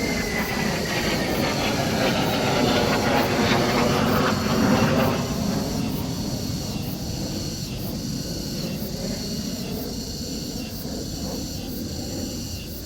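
Airplane flying low overhead: a loud rushing roar with a falling whine that swells to its loudest about four to five seconds in, then slowly fades.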